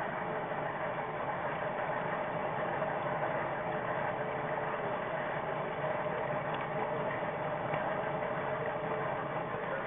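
HO-scale model train running along its track, a steady mechanical whir of the locomotive's motor and gears with the wheels rolling on the rails, heard up close from on board the train.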